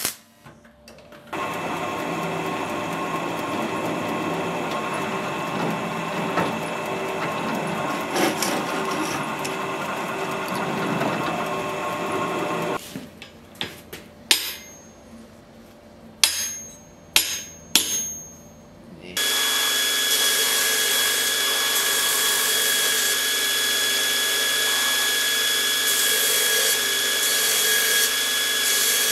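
The steady hiss of arc welding runs for about eleven seconds. After a pause come about five sharp hammer blows on a steel anvil, each leaving a high ring. From about nineteen seconds a belt grinder runs steadily with a high whine while steel is ground on it.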